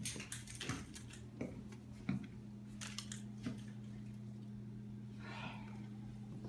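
Steady low electrical hum, with scattered faint clicks and rustles of someone moving about and a short hiss about five seconds in.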